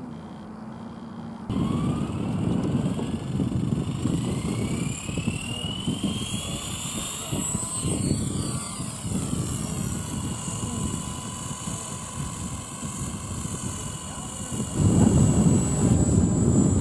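Small electric RC helicopter spooling up on the ground: a whine that rises in pitch for several seconds, then holds steady. A low rumbling noise runs underneath and gets louder near the end.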